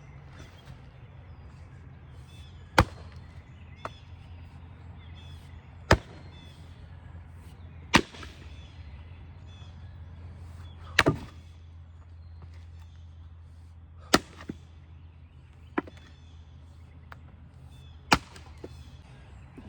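Heavy single blows of an axe into wood, about eight sharp strikes spaced two to three seconds apart, with a few lighter knocks between them.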